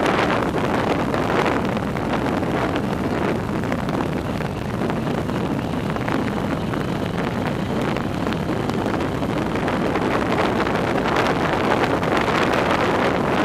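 Steady rushing wind on the microphone of a track bicycle riding at speed around a wooden velodrome.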